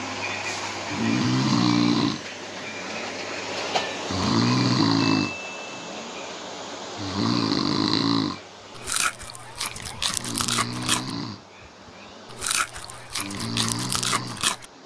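Snoring: three long snores about three seconds apart, then from about nine seconds in sharp crunching of snack chips being eaten, with quieter snores between the crunches.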